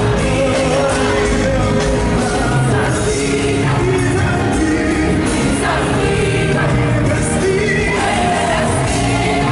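Gospel worship music with singing voices over a full band.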